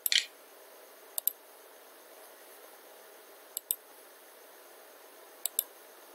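Computer mouse clicking: short sharp clicks, mostly in quick press-and-release pairs, four times, one to two and a half seconds apart, over a faint steady hiss.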